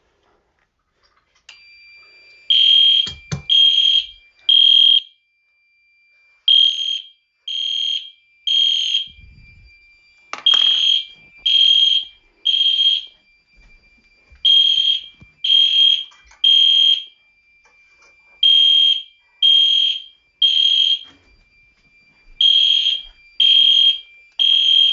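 EST fire alarm system horns sounding the temporal-three evacuation pattern: groups of three loud beeps with a pause after each group, six times over. A faint steady tone runs beneath, and a sharp click comes about ten seconds in.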